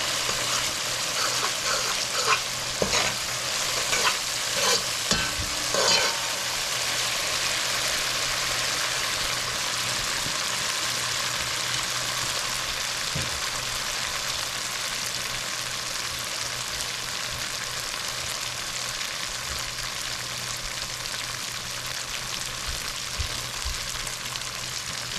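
Masala paste and onion frying in hot oil in a pot, sizzling steadily. It is stirred with several scraping strokes over the first six seconds or so, then the sizzle carries on alone as the spices are cooked down to release their flavour.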